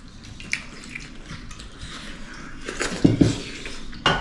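Light clicks and clattering, with two dull thumps about three seconds in and a sharp knock near the end.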